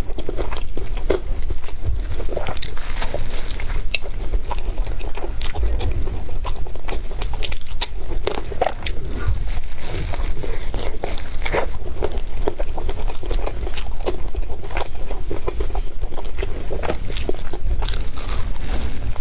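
Close-miked eating: a person biting and chewing an egg wrap, with many small irregular crackling, wet clicks.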